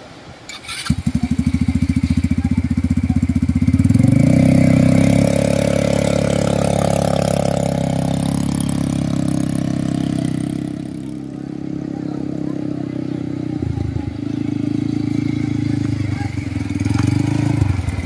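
Quad bike (ATV) engine starting suddenly about a second in, running briefly at a low speed, then revving up as it pulls away. It runs steadily, drops in level as the bike moves off and rises again as it comes back close near the end.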